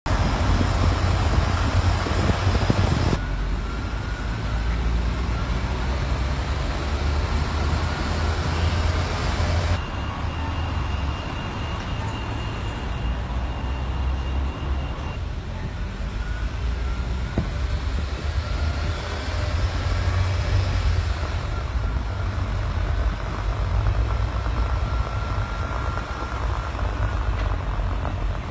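Road and traffic noise heard from a vehicle driving through city streets: a steady low rumble under a noisy hiss, which changes abruptly a few times. A faint steady high tone sounds for a few seconds midway.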